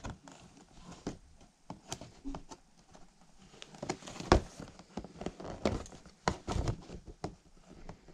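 Scissors cutting into a cardboard box, with irregular snips, clicks and rustles as the box is handled; the sharpest click comes about four seconds in.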